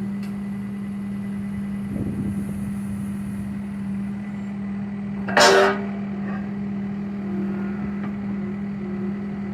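John Deere 318G skid steer's diesel engine running with a steady drone. About halfway through there is one loud, sudden noise lasting about half a second.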